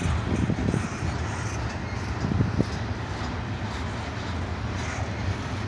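Double-stack intermodal freight cars rolling past on steel rails: a steady low rumble of wheels on track, with a few louder knocks about half a second in and again about two and a half seconds in.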